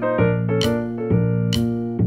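Background music: piano or electric piano chords over a steady beat of about one hit a second.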